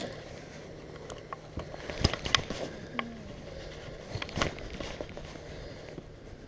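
Scattered clicks and knocks of a hand working a fishing rod and reel right at the microphone while fighting a fish, the loudest about two and four and a half seconds in, over a faint steady low hum.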